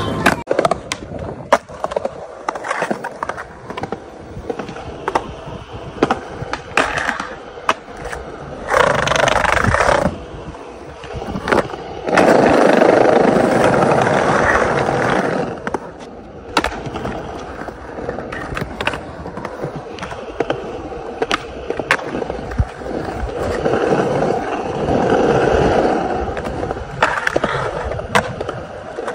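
Skateboarding: wheels rolling over concrete and brick pavers, repeated sharp clacks of the board popping and landing, and longer stretches of scraping as the board slides a metal handrail and grinds a concrete ledge.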